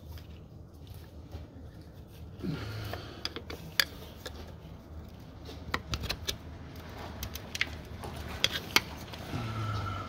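Irregular light metallic clicks and scrapes of a screwdriver tip working against the clutch hydraulic line's snap-in fitting at the slave cylinder, prying and pushing the release collar in.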